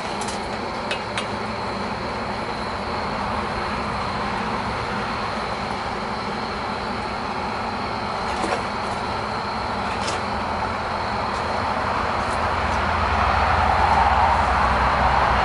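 A small forge heating setup running with a steady rushing noise that grows louder near the end, heating a steel rod for twisting, with a few light metal clinks.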